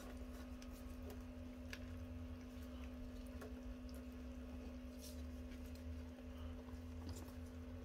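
A faint steady low hum with a few scattered light clicks and taps.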